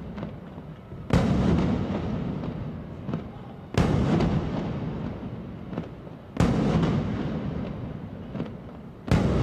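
Aerial fireworks shells bursting overhead: four heavy booms about two and a half seconds apart, each rumbling away slowly, with a few smaller cracks in between.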